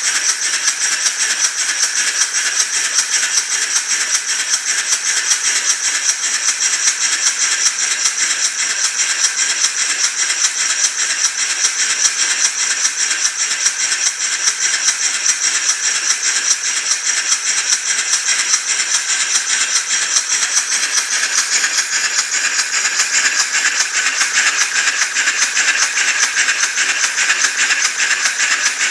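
Small Cretors "D" style horizontal steam engine running fast and steadily: a continuous hiss with a rapid, even chuffing from the cylinder's exhaust.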